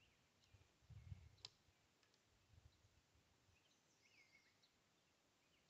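Near silence: faint bird chirps, with a few soft low bumps about a second in and one faint sharp click about a second and a half in.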